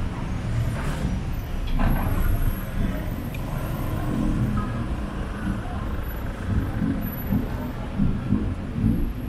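Busy city street traffic: a steady low rumble of passing engines, with two short hisses about one and two seconds in.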